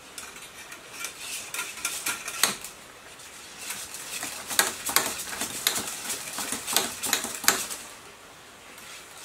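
Hand-cranked coil winder clicking and rattling as it is turned, winding wire onto a stepped coil former to rewind a water pump motor. Two runs of rapid clicking, with a short pause about two and a half seconds in.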